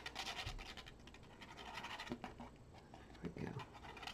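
Faint scratchy rustling of craft paper and materials being handled, strongest in the first second and again near the end, with a few soft knocks in between.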